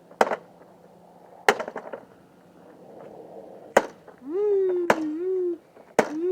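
Hard, single strikes against an old Hoover vacuum cleaner as it is being smashed, about five of them at uneven intervals. From about four seconds in, they are joined by two long, wavering, howl-like calls.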